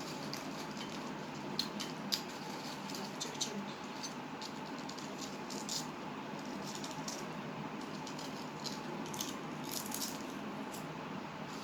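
Sour potato chips crunching as they are chewed: a scatter of short, irregular crackles over a steady low hiss.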